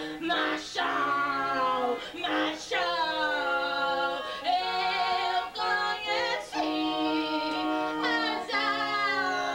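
Live singing: a voice holding long notes with a slight vibrato, sliding between pitches, with no clear words.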